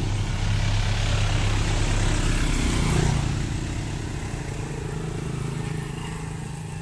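Road traffic: a light truck drives past, its engine and tyre noise swelling to a peak about three seconds in and then fading, over a steady low motorbike engine hum. A motorbike towing a cart of potted plants passes near the end.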